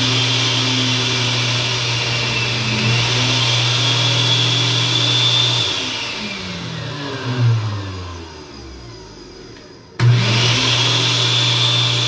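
Countertop blender motor base running without a jar at high, unloaded speed while its push-button speeds are tried out to find the fastest. About six seconds in it is switched off and winds down with a falling whine; near the end it is switched on again and jumps straight back to full speed.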